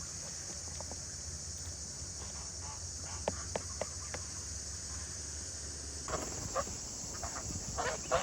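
Insects chirping steadily in the background, with scattered faint knocks and short sounds; the background changes abruptly about six seconds in.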